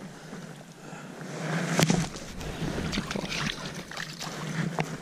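Water splashing and sloshing as a fish is handled in the water, building to one sharp splash about two seconds in, then scattered small splashes and drips.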